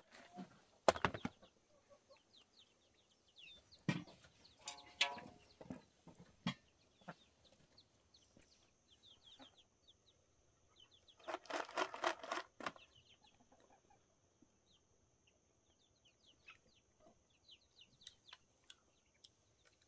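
Chickens clucking, with a dense run of rapid cackling about twelve seconds in, over faint high chirps of small birds. A few sharp knocks or clicks, the loudest about a second in.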